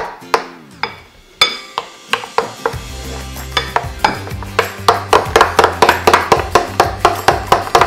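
Background production music with a steady, evenly spaced percussive beat; a falling tone in the first second, and a bass line coming in about three seconds in.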